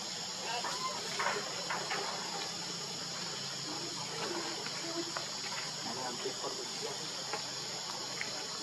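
A steady, high-pitched insect chorus, with faint short chirps and clicks scattered through it.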